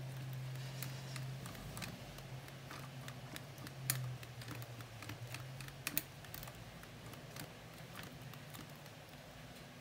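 Faint, scattered light clicks and ticks from fingers tightly winding sewing thread around a fishing-reel handle shaft.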